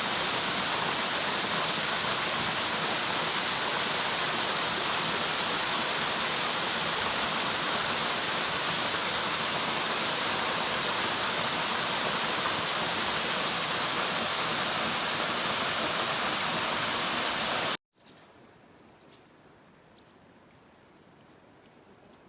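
Waterfall rushing, a steady loud wash of water noise. About 18 seconds in it cuts off suddenly, leaving a faint steady high-pitched tone with a few soft clicks.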